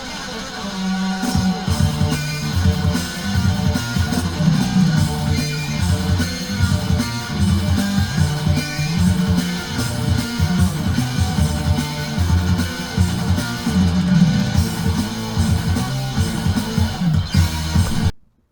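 Background music: a guitar-led track with bass and a steady beat, cutting off suddenly near the end.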